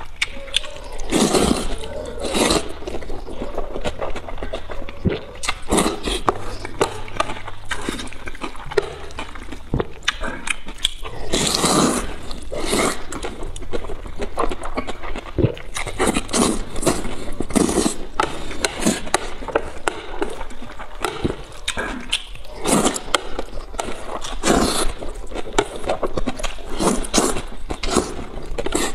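A person slurping wide flat noodles dressed in red chili sauce and chewing them wetly, with loud slurps every few seconds.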